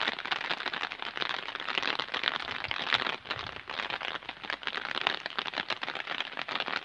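Steady rain falling, a dense run of small drop ticks over an even hiss.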